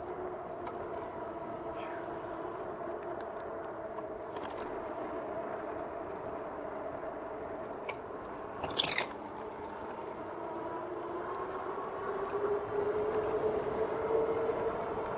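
A 2018 RadMini electric fat-tire bike rolling on pavement: a steady hum at several pitches from the hub motor and knobby fat tires, dipping a little and then rising in pitch over the last few seconds as the bike speeds up. About nine seconds in there is a short rattling clatter as the wheels run over a wooden footbridge.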